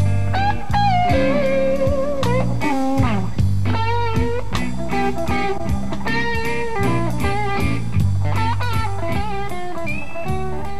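Blues-rock music with an electric guitar lead, its notes bending and sliding in pitch over steady bass notes.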